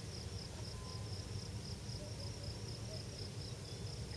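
Insect chirping, cricket-like: a faint, steady, high-pitched pulsing trill, over a low outdoor rumble.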